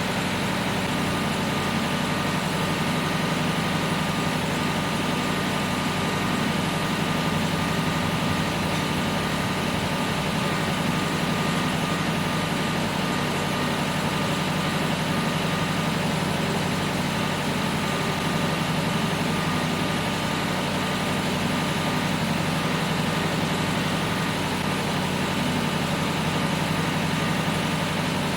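Tractor engine running steadily, a constant drone with no change in speed.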